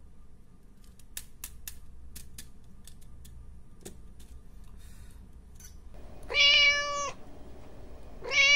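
A cat meowing twice, two short, near-identical calls about two seconds apart, the second near the end. Before them come a few light clicks from the winding of a small plastic wind-up cat toy.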